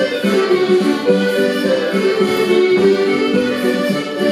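Scottish country dance music played on accordion and fiddle, a continuous tune.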